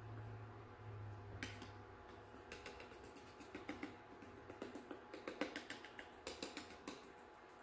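Small metal mesh strainer being tapped to sift activated charcoal powder onto soap: runs of light, irregular metallic clicks and taps starting a couple of seconds in, over a faint low hum.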